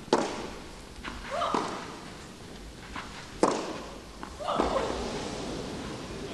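Tennis rally on a clay court: tennis balls struck by rackets about every one and a half seconds, with two sharp, louder hits (at the start and about three and a half seconds in) and softer shots from the far end between them, echoing in a large hall.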